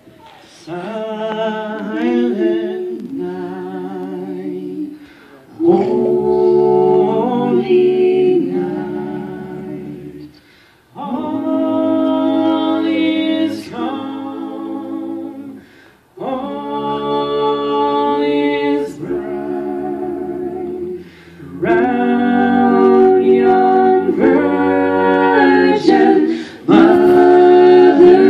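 Five-voice a cappella group singing in close harmony, with a low bass line under the chords. The chords are held through phrases of about five seconds, broken by brief pauses for breath.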